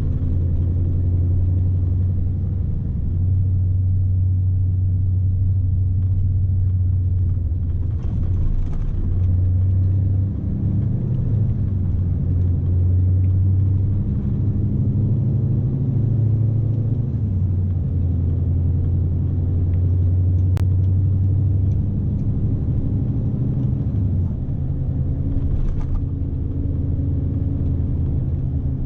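Scania S520 truck's V8 diesel engine heard from inside the cab: a steady low drone under load, its pitch shifting slightly every few seconds.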